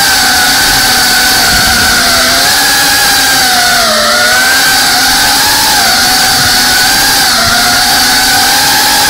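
FPV quadcopter's brushless motors and propellers whining, picked up by the onboard camera. The pitch rises and falls with the throttle, dipping about four seconds in and again a couple of seconds later.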